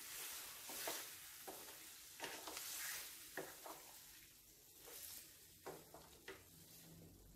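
Wooden spatula stirring chicken pieces in a frying pan of masala: faint sizzling with soft scrapes and clicks of the spatula against the pan.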